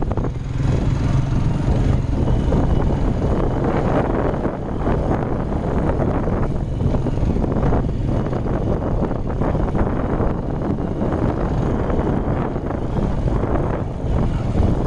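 A motor vehicle's engine running steadily while driving over sandy ground, with wind buffeting the microphone.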